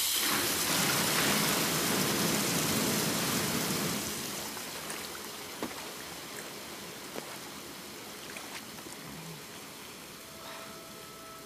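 Water gushing from the many spouts of a large bath's tap fountain, a steady rush that eases after about four seconds into a softer running sound, with a few drips and small splashes.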